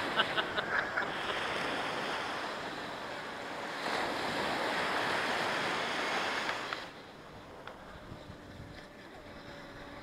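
Small sea waves breaking and washing up a sandy beach, a steady hiss of surf with wind on the microphone, dropping sharply to a quieter wash about seven seconds in.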